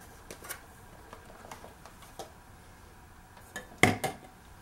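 Drinking cups and a test meter being handled on a countertop: a few light taps and clicks, then two louder knocks close together near the end.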